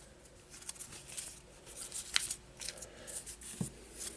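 Paper trading cards being handled and flipped through by hand: soft scattered rustles and slides of card against card, with a sharper click about two seconds in and a soft knock near the end.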